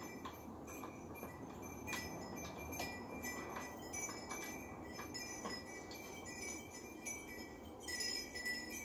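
Light metallic clinks, each followed by a short bright ringing, repeated several times: small metal parts knocking together.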